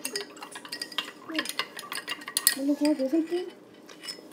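A metal spoon stirring sugar into a cup of lemonade, clinking and scraping against the cup in quick, irregular taps.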